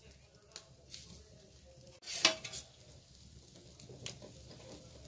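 Wood fire crackling under a skewered whole chicken with faint sizzling, a few sharp pops, and one loud short crackle-like burst about two seconds in, as marinade is spread over the roasting chicken with a metal spatula.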